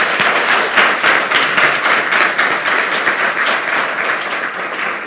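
Audience applauding: many hands clapping in a dense, even patter that eases off slightly near the end.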